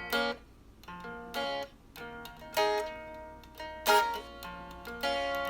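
Music on a plucked string instrument: single notes and chords struck sharply and left to ring out, about one a second.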